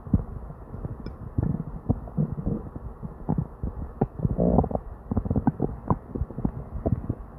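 Upset stomach gurgling and rumbling non-stop: many short, irregular pops and squelches, with a longer bubbling gurgle about four and a half seconds in. These are the bowel noises of a stomach upset with diarrhea.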